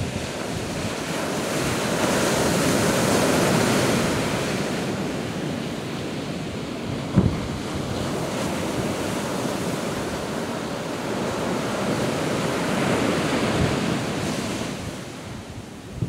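Sea waves breaking and washing up a sandy beach, the surf swelling louder twice and easing between. Wind buffets the microphone with short low thumps, the strongest about seven seconds in.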